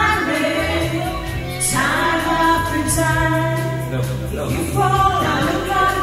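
A woman singing karaoke into a handheld microphone over a backing track with a steady bass line.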